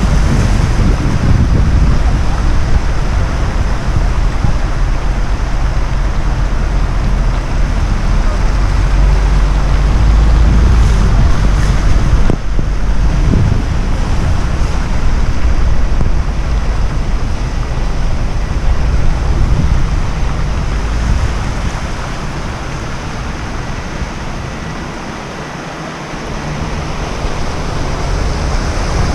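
Vehicle driving through flood water: a loud, steady rush of water with a deep rumble and wind buffeting the microphone, easing off for a few seconds near the end before building again.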